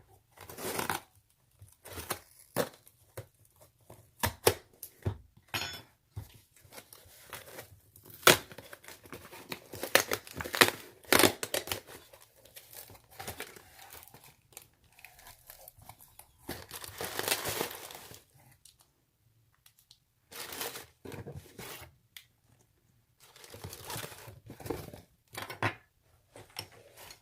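Cardboard shipping box being cut and torn open by hand, with irregular ripping, crinkling packaging and sharp clicks coming in spurts with short pauses between.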